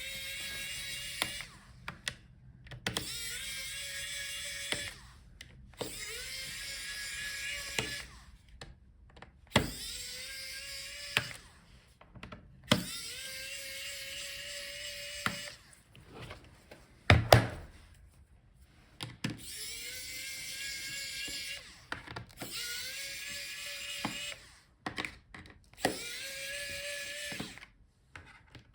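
Electric screwdriver backing out a laptop's bottom-case screws: about ten short runs, each a whine that rises in pitch as the motor spins up and then holds steady. Small clicks and taps fall in the pauses between runs, with one louder knock past the middle.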